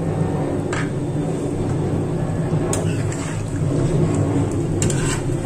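A steady low hum, over which a spatula scrapes and clicks against a nonstick frying pan while a milky vegetable curry is stirred: once about a second in, again near three seconds, and a quick cluster near the end.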